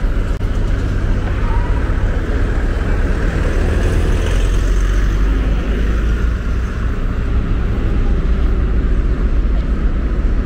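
Steady outdoor background noise with a deep low rumble and an even hiss that swells slightly around the middle.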